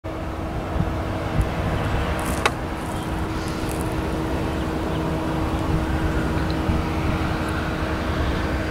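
Distant diesel locomotives, an EMD SD60M and a GE D9-44CW leading a loaded rock train, rumbling steadily with a constant hum as the train approaches. A single sharp click about two and a half seconds in.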